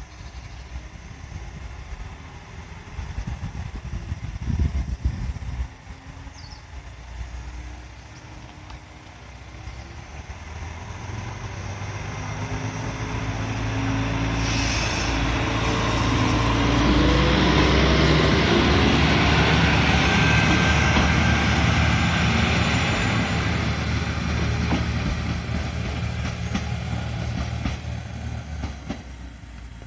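Isumi 350 diesel railcar pulling away: its diesel engine revs up under load as the car rumbles past on the rails, loudest about halfway through, then fading as it draws away.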